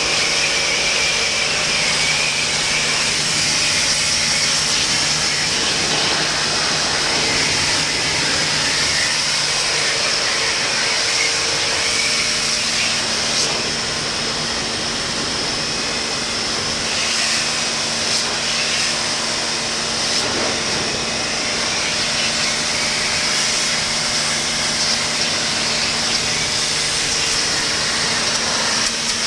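A motor running steadily with a constant hiss and a low hum, a few steady tones shifting slightly about halfway through.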